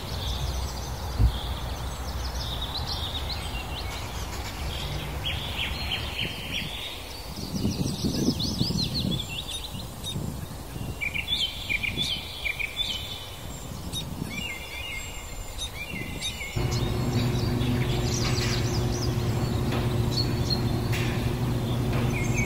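Small birds chirping and trilling over outdoor background noise. The background changes abruptly twice, and a steady low hum comes in for the last several seconds.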